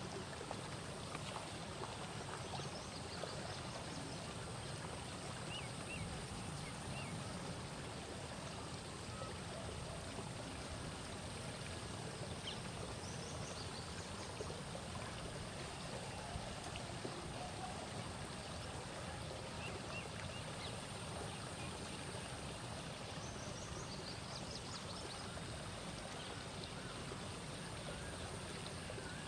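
Steady rush of moving water, with a few faint, short high chirps now and then.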